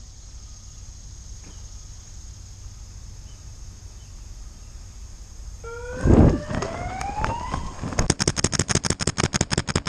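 A siren-like tone rising steadily in pitch over about two seconds, with a loud low thump just after it starts, then rapid paintball marker fire, a fast even string of sharp shots at about nine a second, over the last two seconds. A steady high hiss lies underneath.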